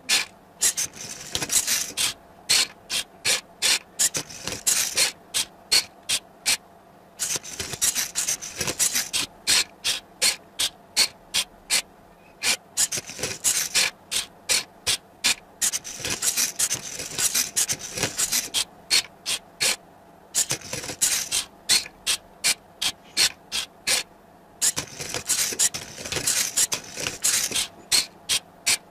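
Arduino-driven wooden Rubik's Cube solving robot at work: its mechanism clicks in a fast even train, about three clicks a second, broken by stretches of a few seconds of rasping and scraping as the wooden cradle turns the cube and its layers rub.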